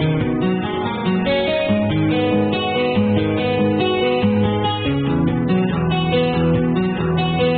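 Guitar music: an acoustic guitar plucking and strumming a continuous run of notes.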